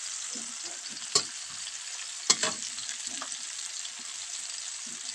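Chopped shallots, garlic and chillies sizzling in hot oil in a wok, stirred with a metal spatula that scrapes and taps against the pan. Two sharper clacks of the spatula on the wok come about a second and two seconds in.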